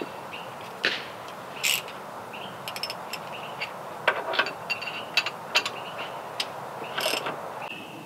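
Scattered metal clicks and clinks of a wrench working the bolts of an adjustable shaft coupler on a sawmill headblock shaft as it is loosened, some coming in quick clusters. Birds chirp briefly in the background.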